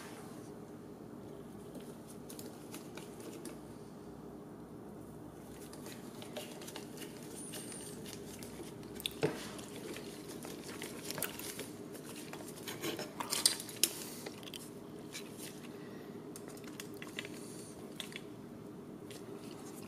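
Small clicks and creaks of a Phillips screwdriver driving tiny self-tapping screws into a plastic strap mount, scattered through the middle with a few sharper clicks a little past the middle. A steady low hum lies underneath.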